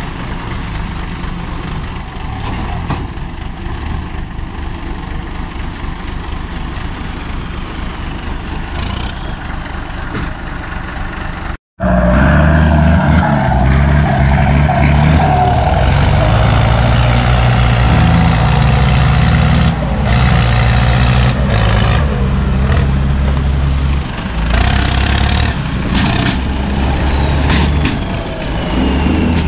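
Isuzu ten-wheel dump truck's 270-horsepower turbodiesel engine running with the bed tipped up. After a sudden break about a third of the way in, it runs louder and harder, with a high turbo whine that climbs and then slowly falls away.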